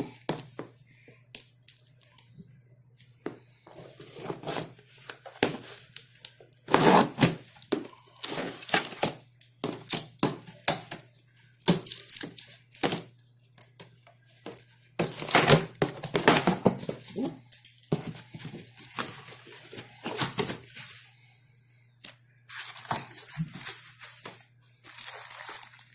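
A cardboard box of packaging being opened and unpacked by hand: irregular tearing, crinkling and rustling, with knocks and thunks as the contents are handled.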